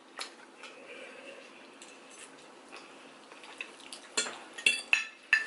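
Metal forks scraping and clinking on plates as noodles are twirled: one clink just after the start, then four sharp, ringing clinks close together near the end.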